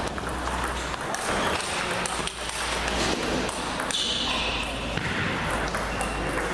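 Table tennis ball clicking on bats and table in a large hall, with voices in the background. A short high squeak comes about four seconds in.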